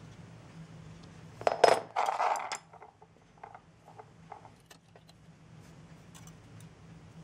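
Small metal parts clinking and jangling, in one burst about a second and a half in, followed by a few light ticks, over a low steady hum.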